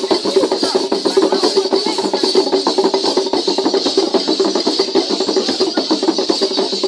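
Traditional drums played fast and steadily for a zingo dance, with many quick strokes a second in an unbroken rhythm.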